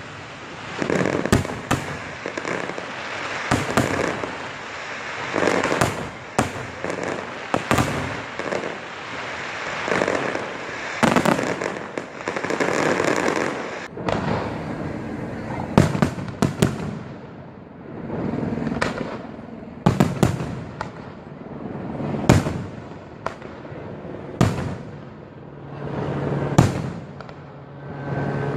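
Fireworks display: many sharp bangs of bursting shells in quick succession, with a rushing wash of noise between them, the bangs spacing out in the second half. A low steady hum comes in near the end.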